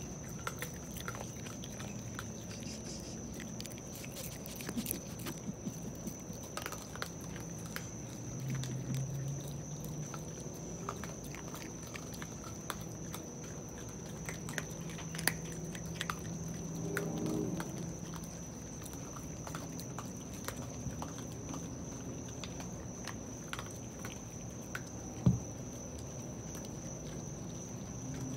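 Raccoons chewing and crunching dry pellet food from a ceramic bowl: many small irregular crunching clicks, with one sharp knock near the end.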